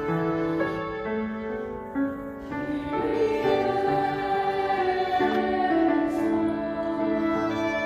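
Violin and grand piano playing together: the violin holds long bowed notes over piano chords.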